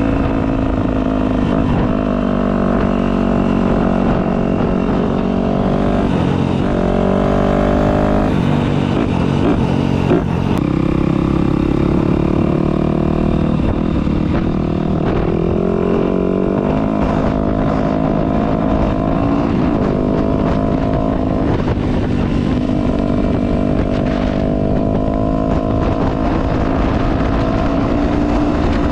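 Dirt bike engine running while riding, its note rising and falling with throttle and gear changes, with a short knock about ten seconds in.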